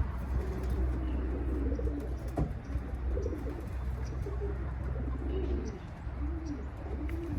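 Racing pigeons cooing: repeated low coos that rise and fall in pitch, over a steady low hum.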